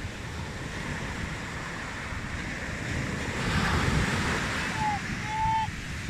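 Small sea waves breaking and washing up the beach, with a surge about halfway through as a wave comes in. Wind rumbles on the microphone underneath, and two short high calls sound near the end.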